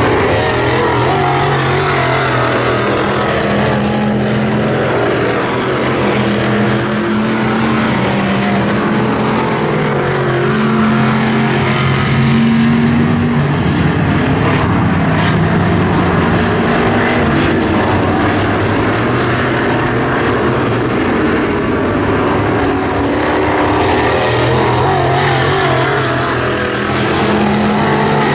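A field of WISSOTA Midwest Modified dirt-track race cars, with small-block V8 engines, running hard around the oval. Several engines overlap, their pitch rising and falling as the cars lift and get back on the throttle, over a loud, steady wash of engine noise.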